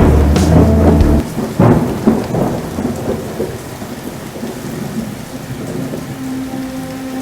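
Steady rain with several sharp thunder cracks in the first few seconds. A music track stops about a second in, and a soft held tone comes in near the end.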